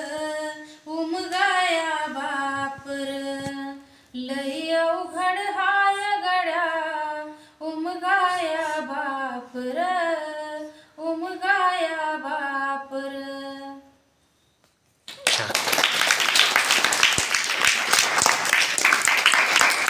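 A woman sings a Marathi song unaccompanied, in long held notes that bend up and down. She stops, and after about a second's pause a group of children applauds.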